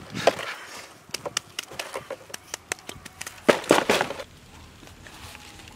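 Handling noises: irregular crisp clicks and crackles as hands move roasted birds on sticks over a fresh palm leaf. A denser, louder flurry comes about three and a half seconds in, stopping about four seconds in.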